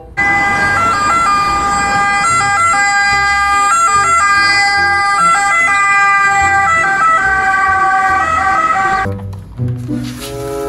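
Ambulance's two-tone siren, switching back and forth between a lower and a higher pitch, over the low rumble of the vehicle; it stops about nine seconds in.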